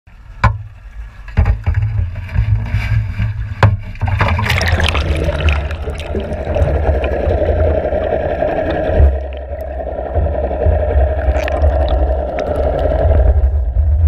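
Knocks from a camera rig on a rock lobster pot over a low rumble, then the pot plunges into the sea with a splash about four seconds in. It is followed by a steady underwater rushing and rumble as it sinks.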